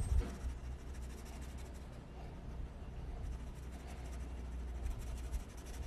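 Fine-tip ink pen scratching on paper in many short strokes as it shades in a drawing, over a steady low hum.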